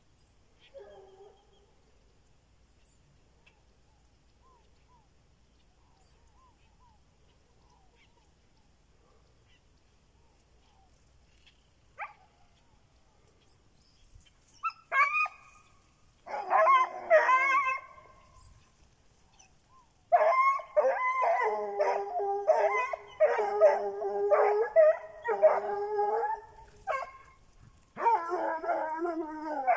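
Hunting dogs baying and howling on a rabbit's trail. The first half is nearly quiet, with a few calls about halfway through, then a near-continuous run of wavering bays fills the last ten seconds.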